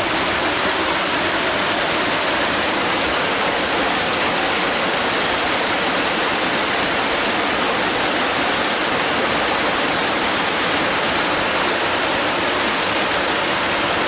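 Water of a rocky waterfall stream rushing steadily over stones, an even, unbroken rush that stays at the same level throughout.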